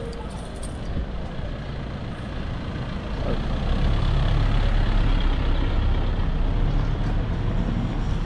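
Street traffic with a heavy vehicle's engine rumble, growing louder about three seconds in and then holding steady close by.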